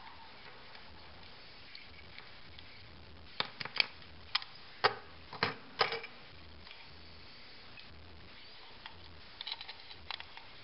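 Sharp plastic clicks and taps from a white travel wall charger and its plug adapters being handled and fitted together. About seven clicks come in a cluster in the middle, and a few lighter ones come near the end.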